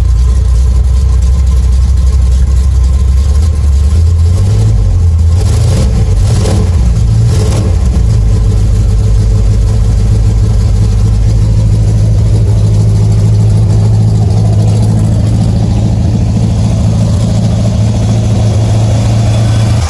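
Chevrolet 350 small-block V8 in a 1985 square-body pickup running on a temporary fuel jug after sitting for about two months, fed directly so that contaminated tank fuel, which clogs its fuel filter, is bypassed. It runs at a low idle, is revved a few times about four to eight seconds in, then holds a steady, faster idle.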